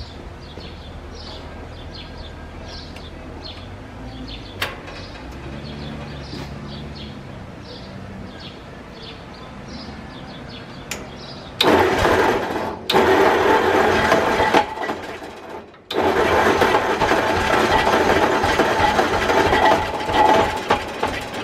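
Ford flathead V8 engine cranked by its starter: a loud grinding run starts about halfway through, breaks off briefly, then starts again. The owner suspects the starter gear may be hanging up.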